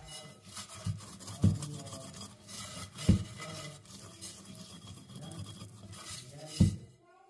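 A glass mixing bowl being handled on a silicone baking mat: steady rubbing and scraping with a few soft knocks.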